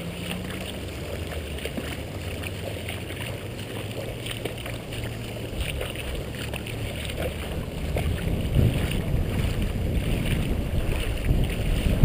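Wind rumbling on the microphone, getting stronger in the second half, over a faint steady hum in the first second.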